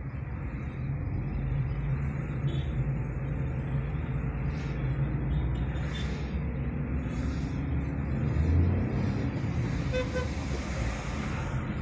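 Car engine and road noise heard from inside the cabin while driving slowly in city traffic, a steady low rumble. Two short horn toots sound near the end.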